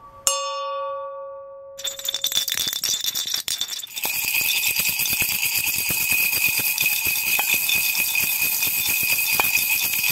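A bell chime rings out and dies away, then from about two seconds in small jingle bells shake in a steady, shimmering jingle.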